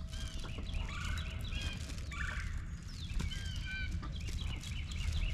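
Free-range chickens making many short, high calls and clucks while feeding.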